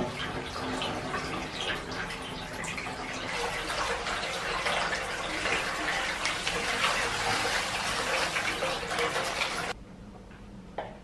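Water pouring into a bathtub from its automatic fill system, a steady splashing rush that cuts off abruptly near the end.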